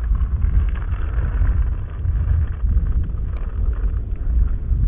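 Wind buffeting the camera's microphone: a loud low rumble that rises and falls with the gusts.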